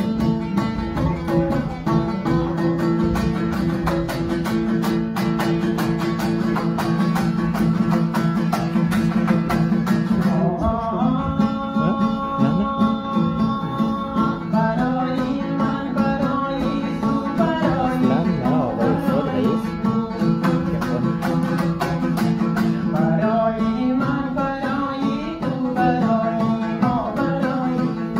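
Hazaragi dambura, a two-string long-necked Afghan lute, strummed steadily in a driving rhythm; a man's voice comes in singing about ten seconds in.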